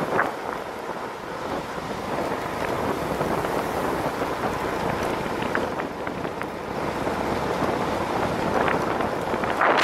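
Steady rush of wind over the microphone mixed with the roll of urethane longboard wheels on asphalt during a fast downhill run. A much louder hiss starts right at the end.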